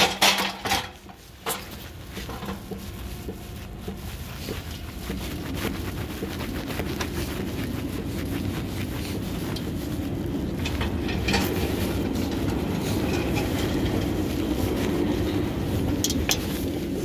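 Pallet jack being pulled across a concrete warehouse floor: a few clanks as the handle is taken, then a steady rolling rattle of its wheels that grows gradually louder.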